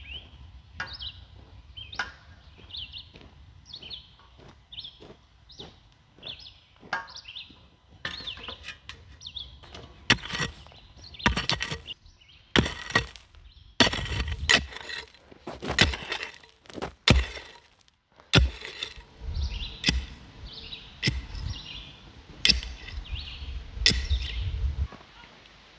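Hand tools striking and breaking up ground while digging a trench: a string of irregular sharp impacts, soft at first and much louder from about ten seconds in. Birds chirp during the first few seconds.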